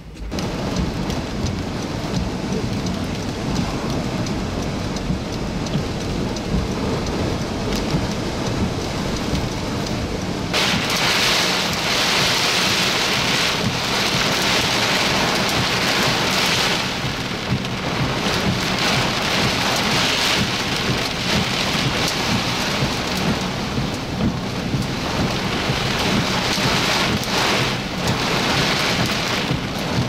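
Severe thunderstorm wind and rain: a steady low rumble of wind buffeting the microphone under the hiss of rain. About ten seconds in the hiss jumps much louder as heavy wind-driven rain arrives, then swells and eases with the gusts.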